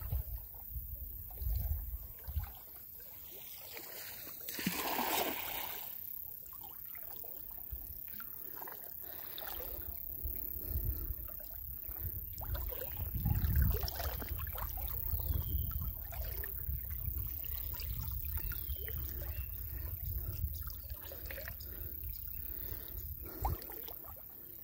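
Muddy floodwater sloshing and trickling around a person wading through it, with small splashes, a louder swish about five seconds in and a low rumble on the microphone throughout.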